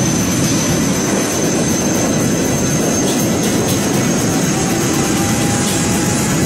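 Military helicopter's turbine engine running on the ground with the rotor turning: a steady loud rush of engine and rotor noise under a thin, high turbine whine.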